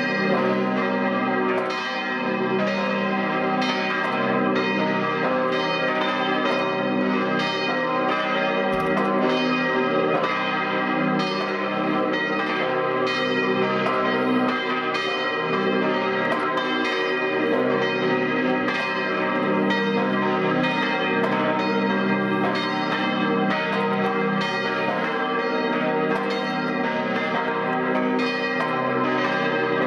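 A peal of several church bells swinging and ringing together, their strokes following one another at a steady pace and their tones overlapping without a break.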